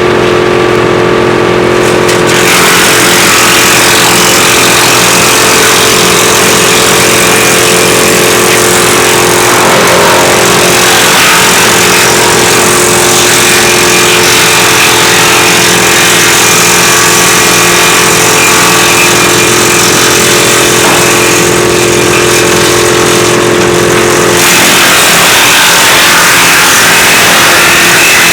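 WC 8 woodchipper running loudly and steadily, with long stretches of harsh, hissing chipping noise from material being fed through. The noise drops away twice, near the start and again for a few seconds near the end, leaving just the steady machine hum.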